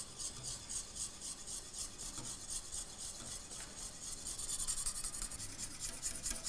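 Wire whisk scraping in quick, even strokes around the inside of a stainless-steel saucepan, stirring milk and cream as it warms, short of the boil.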